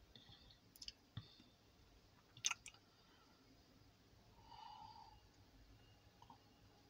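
Near silence with a few faint clicks, the loudest about two and a half seconds in.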